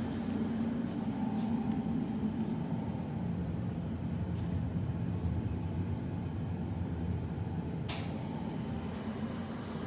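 Steady low mechanical drone with a hum, a few faint clicks, and one sharp click about eight seconds in.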